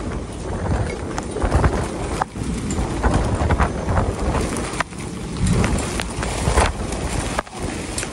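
Storm wind gusting hard, buffeting the microphone with a heavy rumble that swells and dips. Frequent sharp snaps and rattles run through it.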